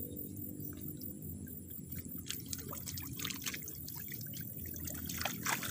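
Pond water sloshing around a person wading waist-deep, and water trickling and dripping off a woven fish basket as it is lifted out of the water. The drips grow busier from about two seconds in.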